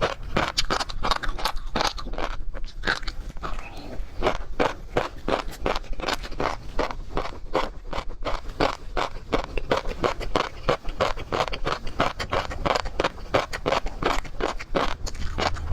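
Close-miked chewing of seafood in a mukbang, fast and steady at about three to four crunchy chews a second.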